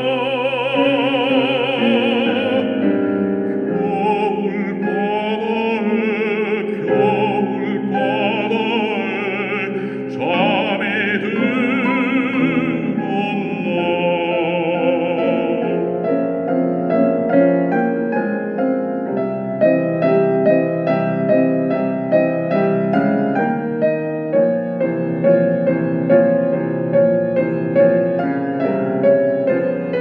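A baritone sings a Korean art song with wide vibrato over piano accompaniment. About halfway through, the voice stops and the piano plays on alone in an interlude.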